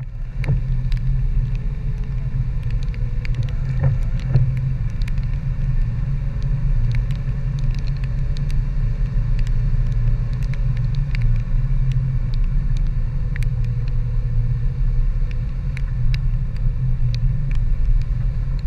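Dodge Power Wagon pickup driving up a snowy, slushy trail, heard through a hood-mounted camera: a steady, loud low engine and tyre rumble with many scattered short clicks and ticks.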